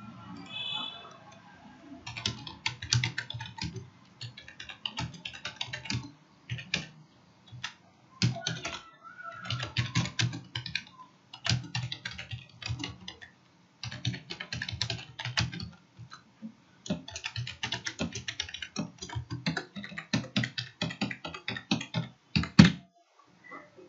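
Computer keyboard typing in quick bursts of clicking keystrokes with short pauses between them, and one harder key strike near the end.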